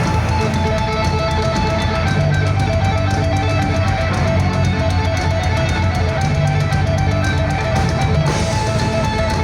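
A live heavy metal band plays, with distorted electric guitars, bass and fast drumming. The band kicks in all at once at the start.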